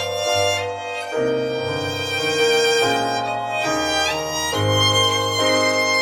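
Background music: a violin melody of held notes over a low accompaniment.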